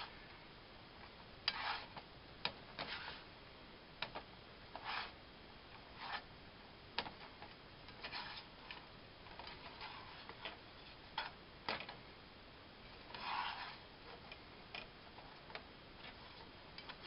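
Plastic slotted spatula stirring rice, diced Spam and pineapple in a nonstick frying pan: quiet, irregular clicks and taps against the pan with short scrapes in between.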